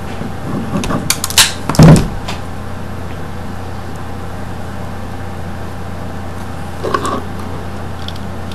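Handling clatter from electrical wiring work: a few clicks and a louder knock about two seconds in as pliers are put down and a plastic switch box is handled, then another small knock near the end, over a steady low hum.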